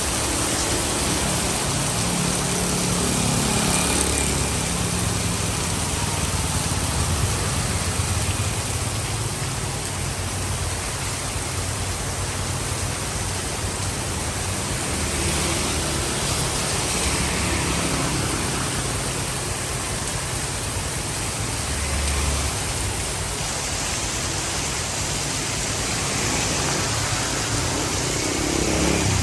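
Steady rain falling on a city street, a constant hiss, with motor vehicles passing through the rain now and then, their engines swelling and fading several times.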